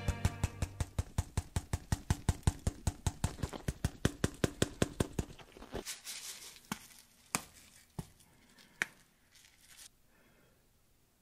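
Spice grinder being twisted over the plate, grinding crushed red pepper as a fast, even ratcheting click, about five clicks a second. It stops about five seconds in, followed by a few scattered single clicks.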